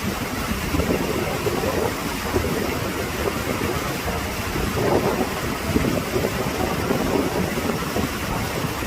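River water rushing steadily, with wind buffeting the microphone in irregular low gusts.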